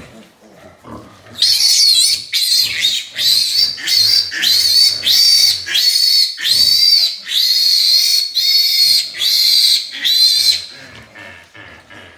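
Newborn piglet squealing loudly and repeatedly while held for its iron injection: about a dozen high squeals in quick succession, starting about a second and a half in and stopping shortly before the end.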